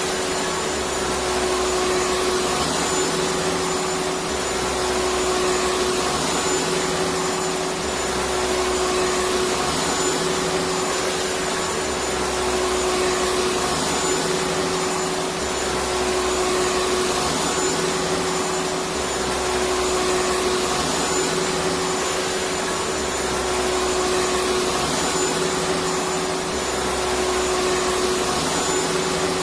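Electric vacuum cleaner running steadily, a constant rushing noise with a steady hum, and a faint low pulse that repeats about every three and a half seconds.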